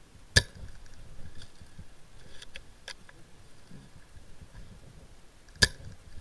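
Two sharp shots from a spring-powered airsoft M24 bolt-action sniper rifle, about five seconds apart, with a few faint clicks between them.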